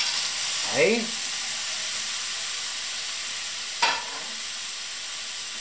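Clams sizzling in hot olive oil in a frying pan as they start to steam: a steady frying hiss, with one short knock about four seconds in.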